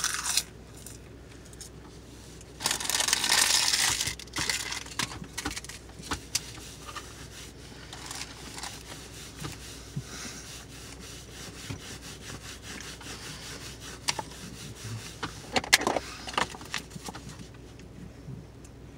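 Chewing of a crisp mouthful of dried roasted seaweed, with a loud crackly crunching burst about three seconds in and scattered small clicks after it. Another short crinkling burst comes near the end.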